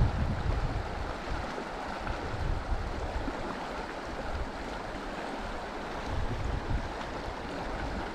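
Steady rush of a flowing mountain stream, with low rumbles of wind buffeting the microphone now and then.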